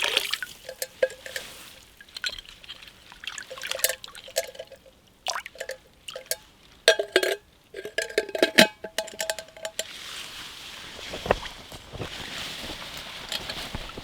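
Liquid being poured and dribbling, with clinks and short rings of camp cookware, and a steadier rushing hiss in the last few seconds.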